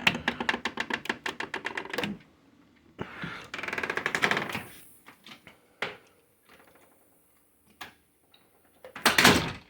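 A screen door with its closers being worked: a fast run of clicks for about two seconds, a swelling hiss, a few scattered clicks, then the door banging shut near the end.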